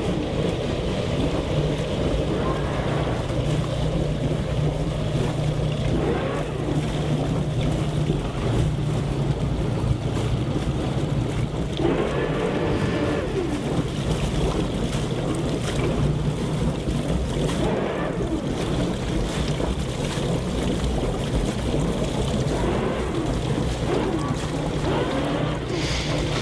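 Twin engines of a nearly 60-foot motor yacht running at idle during low-speed docking, a steady low hum under a faint hiss.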